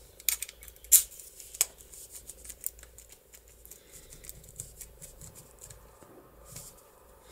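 Small metallic clicks and scraping from a DOM IX profile lock cylinder as a key and a thin metal tool are worked in its keyway to free the core. A few sharp clicks come in the first two seconds, then lighter ticking for a few seconds more.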